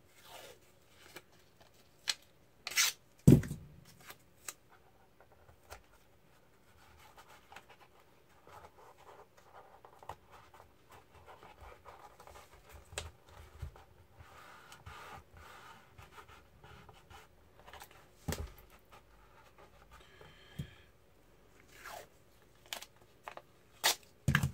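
Blue painter's tape being pulled off its roll and torn, in a few sharp rips with rustling handling in between; the loudest rip comes about three seconds in.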